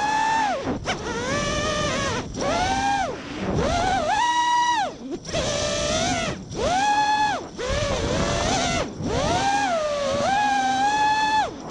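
Four Emax RS2205 2300kv brushless motors of a 5-inch 3D FPV quadcopter whining, heard from the onboard camera, their pitch swooping up and down with the throttle. About every one to two seconds they drop out briefly and spool back up, as the motors stop and reverse for inverted 3D flying.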